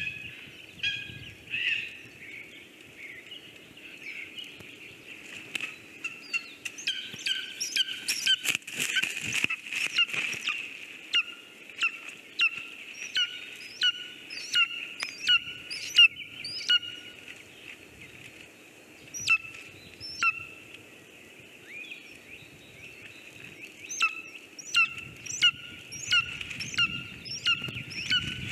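Lesser spotted eagles calling at the nest: long runs of short, repeated calls, about two a second, in two spells with a pause between. A cluster of sharp knocks and rustles comes from the nest around eight to ten seconds in.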